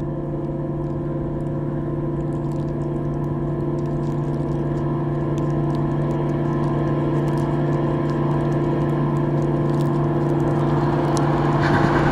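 Sustained droning chord from a film-score soundtrack, held steady and swelling slowly, with a hiss building toward the end.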